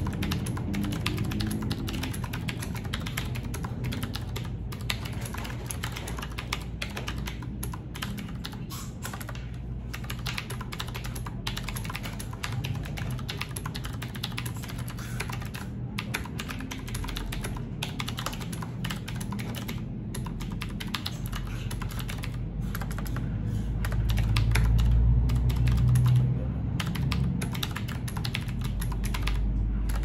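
Fast continuous typing on a Qwerkywriter typewriter-style mechanical keyboard: a dense, unbroken stream of key clicks. A deeper rumble swells for a couple of seconds late on.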